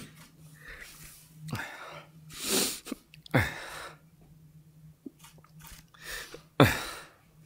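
A man sobbing: four sharp, gasping sobs that fall in pitch, with sniffing, shaky breaths between them; the last sob is the loudest.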